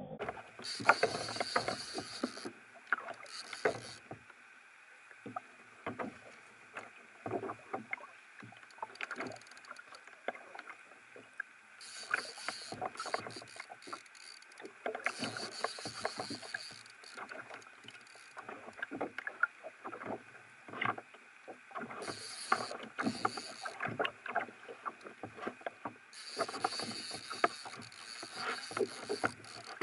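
Choppy sea water slapping and knocking against a fishing kayak's hull in many irregular sharp knocks, with several stretches of hiss coming and going.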